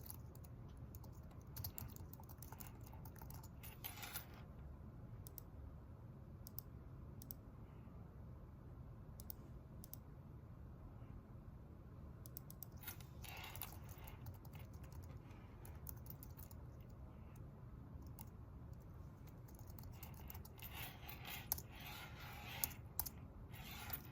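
Computer keyboard typing in short bursts of quick key clicks, with scattered single clicks between them, over a steady low hum of room noise.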